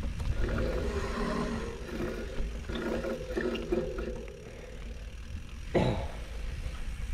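Mountain bike rolling along a dirt singletrack: tyres on the dirt and the bike's rattle under a steady low rumble of wind on the microphone, with a brief hum in the middle and a single sharp knock about six seconds in.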